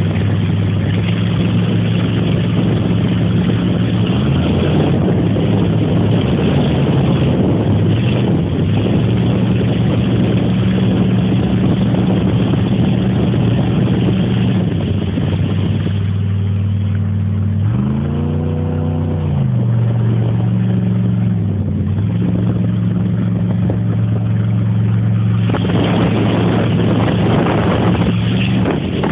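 Motorboat engine running steadily at speed, with water and wind noise. About 18 seconds in the engine note rises and falls once in a brief rev, and the overall noise is softer for several seconds before picking up again.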